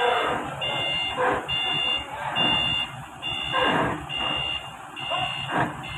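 A 7-ton forklift's reversing alarm beeps steadily, about one beep a second, as the forklift backs up under load. Underneath, the engine runs low and a few short shouts or calls cut in.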